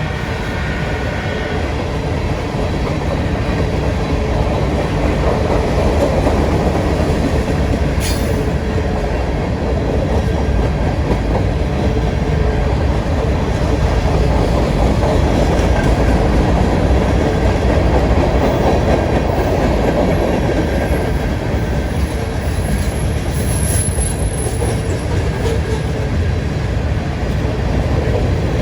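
Freight train cars rolling past, a steady rumble and rattle of wheels on the rails.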